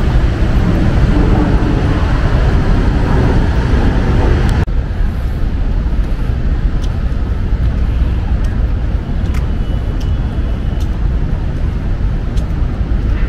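City street ambience: a steady rumble of road traffic. About four and a half seconds in the sound changes abruptly to a thinner, slightly quieter noise with scattered sharp clicks.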